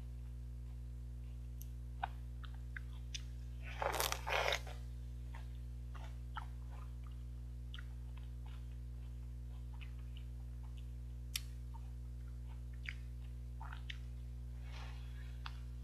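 A crunchy bite into a piece of peeled oriental melon (chamoe) about four seconds in, followed by chewing with small wet mouth clicks, and another crunchy bite near the end. A steady low hum runs underneath.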